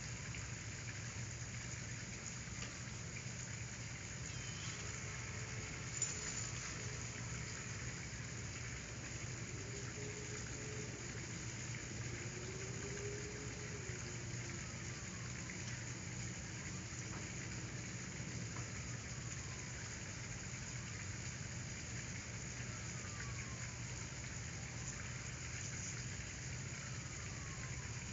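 Steady even background hiss with a low hum under it, with no clear event standing out.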